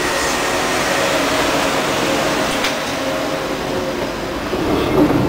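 Inside a moving tram: steady running and rolling noise with a faint steady hum, and one sharp click about two and a half seconds in.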